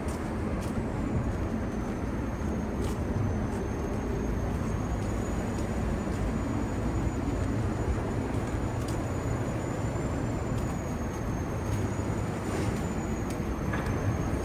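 Steady low rumble of city road traffic, with a thin high whine that wavers slightly in pitch and a few faint clicks.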